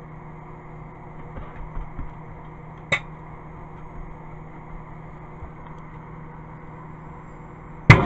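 Microwave oven running with a steady hum while a plasma ball glows inside it. A few small pops come early, then a sharp crack about three seconds in and a louder crack near the end, the loudest sound, from inside the oven.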